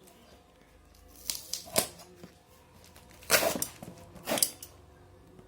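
Humidifier packaging being cut and pulled open by hand: a few sharp snaps and crackles, the longest about three and a half seconds in.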